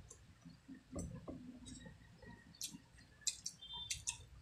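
Faint, irregular wet clicks and smacks of people chewing squid adobo and eating with their fingers, with no steady sound beneath.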